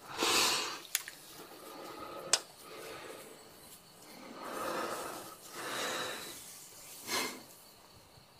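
Close, heavy breathing of two people with faces pressed together: several slow, noisy breaths in and out, with two short sharp clicks in the first few seconds.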